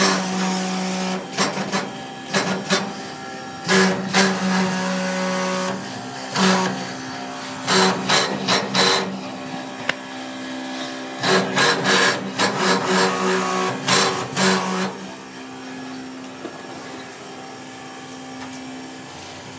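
Pressure washer spraying a car in repeated bursts, its pump motor humming with each burst. From about fifteen seconds in the spraying stops and only a lower steady hum remains.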